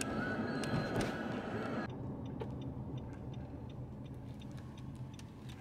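Car road noise for about two seconds, then, after a sudden drop, a car's turn-signal indicator clicking steadily at about three clicks a second over a low engine hum inside the cabin.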